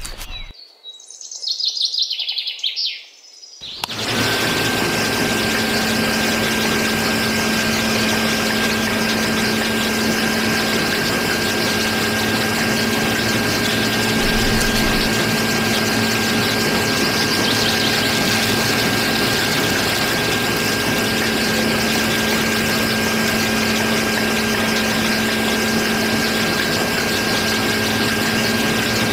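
A few short bird-like chirps, then from about four seconds in a loud, steady machine drone with a constant hum that does not change in pitch or level.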